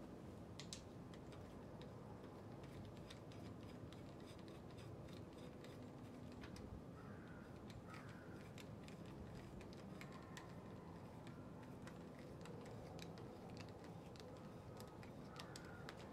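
Faint, scattered light clicks and taps of pushrods and rocker arms being fitted by hand onto an LS V8 cylinder head.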